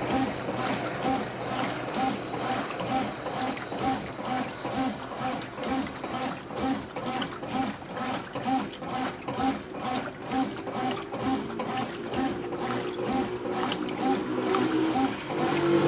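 Brastemp BWQ24A top-loading washing machine agitating its wash load, churning the water back and forth in an even rhythm of about three strokes a second. A steady hum comes in at about ten seconds and grows louder near the end.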